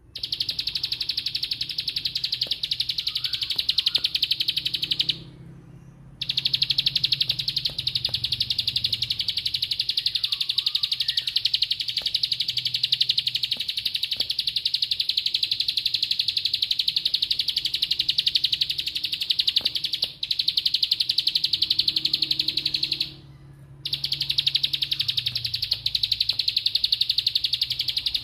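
Plain prinia (ciblek sawah) singing its 'bren' song: long, unbroken runs of a very fast, even trill, broken off by short pauses about five seconds in and again near the end.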